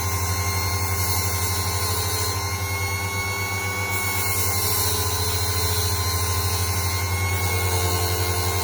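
Variable-speed electric bench grinder motor running at high speed with a steady whine over a low hum. The pitch sags slightly midway and then comes back up.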